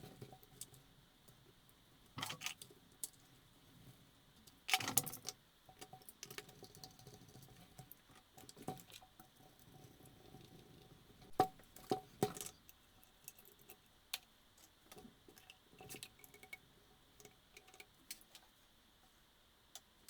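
Handling noises from a chainsaw repair: scattered light clicks and taps of tools and parts, with a few short scrapes, the loudest about five seconds in.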